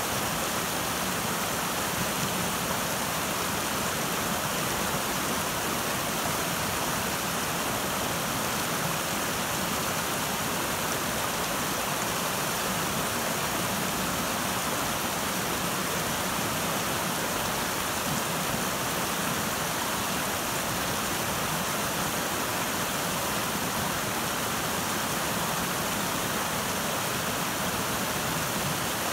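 River water rushing over a rocky bed and small rapids: a steady, even rush of flowing water.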